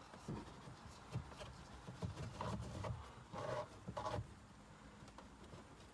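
Several short, faint bursts of scraping and rubbing as a new pleated cabin air filter is pushed into its plastic housing.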